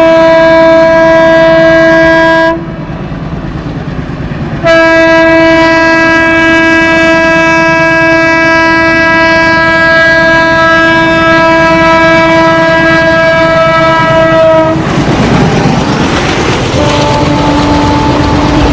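WDM-3D diesel locomotive's horn blaring at a train passing at speed: a short blast, a two-second break, then one long continuous blast. As the locomotive goes by, the rumble and clatter of the train take over, and the horn carries on at a lower pitch.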